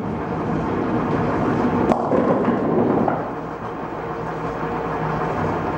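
Bowling alley noise: a steady rumble of balls rolling down the lanes and pins clattering, with one sharp crack about two seconds in.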